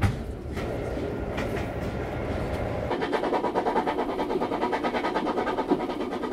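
Steam-hauled passenger train in motion, heard from a carriage: a sharp knock right at the start, then a rumbling run. From about three seconds in, a fast, even rhythmic beat of the moving train.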